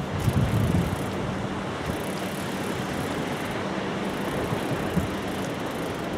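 Steady wind noise on the microphone, an even rushing hiss with no distinct events.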